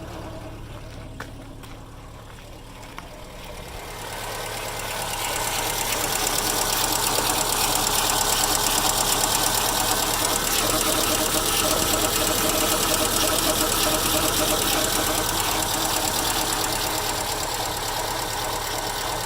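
2005 Subaru Impreza RS 2.5-litre flat-four running in park after a cold start. About four seconds in, a loud, rough chugging noise builds up and carries on. The owner suspects a torque converter that ran dry after the engine rebuild and needs to fill up.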